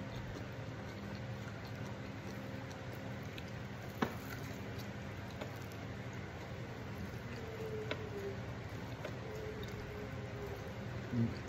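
Close-up eating sounds: a man picking fried fish apart with his fingers and chewing, soft wet mouth and food sounds with a couple of sharp small clicks, over a steady low hum.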